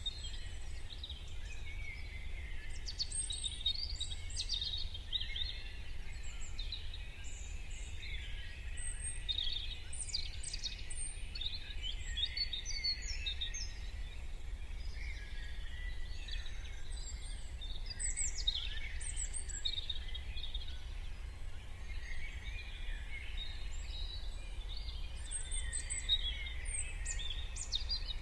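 Morning chorus of many songbirds chirping and trilling at once, over a steady low rumble.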